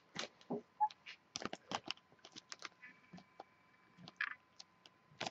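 Clear cellophane bag crinkling and crackling as it is handled, a scatter of faint, irregular little clicks.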